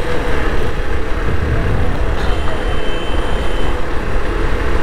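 Motorcycle riding over milled, grooved asphalt: steady wind and road rumble on the camera microphone, with the engine and tyre noise underneath. A faint high tone sounds briefly midway.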